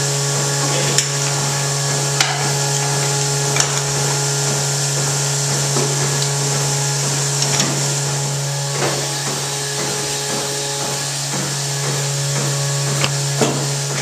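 Milking parlour machinery running: a steady hum and hiss from the milking system's vacuum. A few short metallic clanks and knocks come from milking units and hoses being handled.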